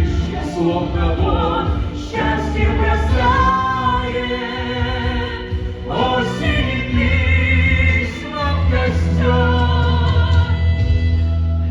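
A woman singing a slow ballad with instrumental backing, in long held phrases. The voice drops out about a second before the end, leaving the accompaniment.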